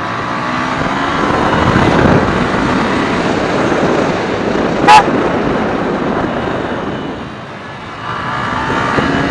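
Wind rushing over the external microphone, despite its furry dead-cat windscreen, on a Yamaha R15 motorcycle ridden fast with the visor open, the engine running faintly underneath; the rush eases briefly about three-quarters through. A brief sharp high tone sounds about five seconds in.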